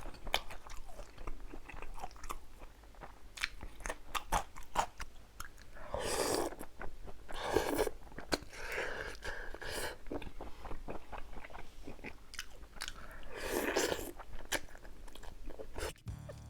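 Close-miked chewing and biting with crisp crunches, as of a person eating fried breaded pork cutlet, with a few longer, louder crunching chews along the way.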